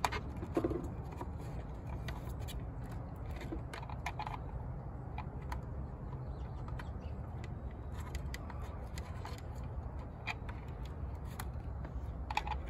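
Scattered small clicks and scrapes of plastic parts knocking and rubbing as a satellite dish LNB is worked into its plastic mounting holder by hand, over a steady low rumble.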